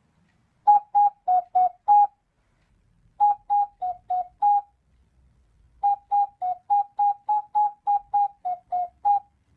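Intro jingle of short, detached whistle-like notes alternating between two close pitches. They come in three runs, five notes, then five, then eleven, about three notes a second, with short pauses between runs.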